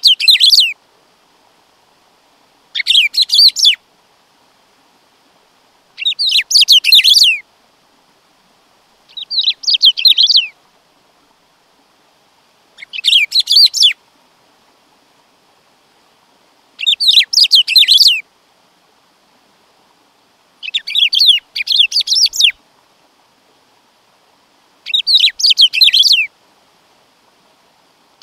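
Black-throated saltator (bico-de-pimenta) singing: about eight short phrases of quick, high, downward-sweeping notes, each about a second long, repeated every three to four seconds.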